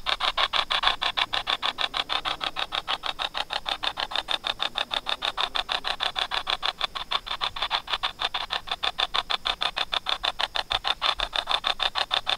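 Spirit box app on a phone sweeping, played through the phone's small speaker: a fast, even chopping of static, about seven chops a second.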